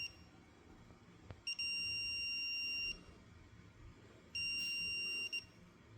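Digital torque wrench beeping twice, a steady high-pitched beep of about a second and a half, then one of about a second. The beep signals that the set torque has been reached on the bolt.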